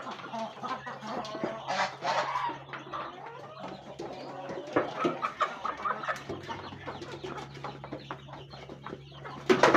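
Chickens clucking as they feed, over many short taps of beaks pecking rice from metal basins, with a louder call near the end.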